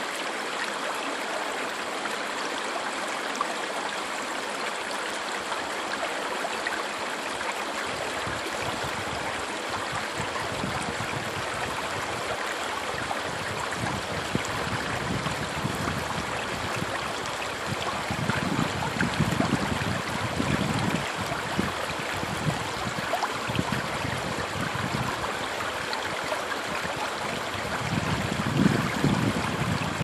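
Small woodland brook babbling over a shallow rock ledge: a steady rush of running water. A few louder low rumbles come and go about two-thirds of the way in and again near the end.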